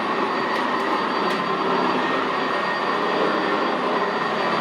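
Sanitaire SC679J commercial upright vacuum running steadily over carpet: an even rushing whir with a thin, steady high whine riding on it.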